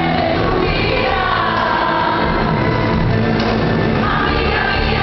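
Live pop concert music: a band playing and a vocal line being sung, heard from the audience in a large arena.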